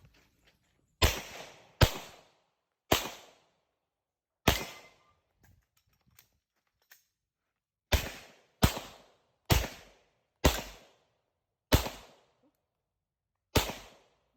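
Ten pistol shots fired in a timed course of fire, spaced irregularly: four over the first few seconds, a pause of about three seconds, then six more at a quicker pace.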